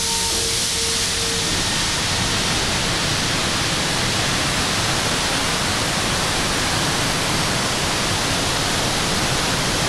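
Water released through the opened sluice gates of the Benagéber reservoir dam, rushing steadily down the concrete spillway. A steady tone sounds over it for the first second and a half.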